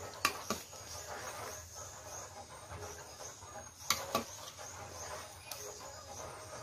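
Metal ladle clinking against a steel plate and pot while fish pieces are handled, in two pairs of sharp clinks, one pair just after the start and one about four seconds in, over a faint steady background noise.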